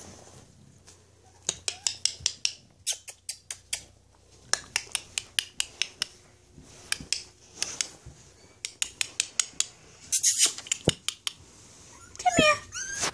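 Four-week-old bulldog puppy scrabbling about on a puppy pad and bedding, its movements making bursts of sharp clicking and crinkling with a dense rustle about ten seconds in. Near the end the puppy gives a few short whimpers.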